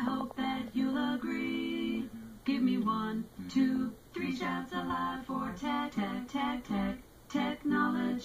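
Alexa's synthesized voice singing a barbershop quartet a cappella in several-part harmony, played through an Amazon Echo Dot smart speaker. The sung phrases are separated by short breaks.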